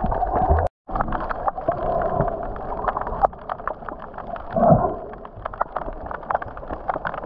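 Underwater sound picked up by an action camera in its waterproof housing while snorkelling: muffled water noise full of a dense crackle of small clicks, with a louder swirl about two-thirds of the way through. The sound cuts out completely for a moment less than a second in.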